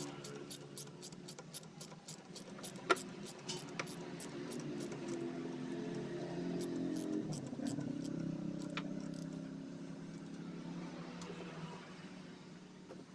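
Sharp metallic clicks and clinks of hand tools working on fuel-hose clamps, over a steady engine hum in the background that swells around the middle and then fades.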